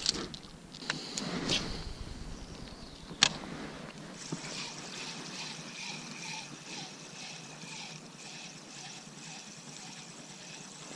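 A spinning reel's bail clicks shut about three seconds in, then the reel whirs steadily as it is cranked to retrieve the lure.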